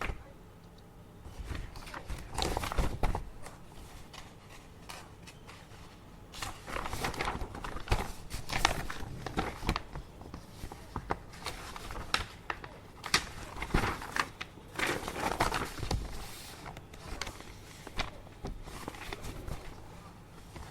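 Office desk work: irregular bursts of rustling and sharp clicks, in four or so spells with quieter gaps between.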